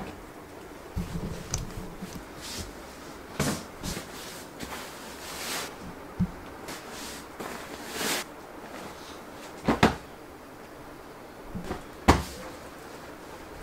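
Bed linen being handled: sheets and pillowcases swished as they are shaken out and spread, with a few soft thuds as pillows are tossed onto the bed. The loudest thud comes near the end.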